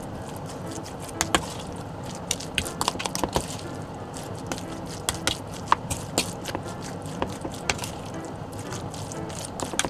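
A metal spoon stirring a wet mixture of chopped raw chicken breast and diced potato in a bowl, with irregular clicks and scrapes of the spoon against the bowl.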